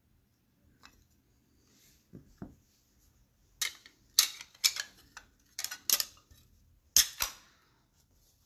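A run of about ten sharp clicks and clacks of small hard items being handled on a tabletop, starting about three and a half seconds in, after a couple of faint soft taps.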